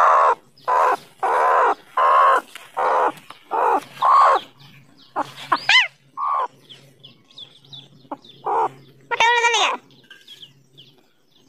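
Broody hen sitting on eggs, calling: a quick run of short clucks for the first few seconds, then scattered calls and one longer wavering call about nine seconds in.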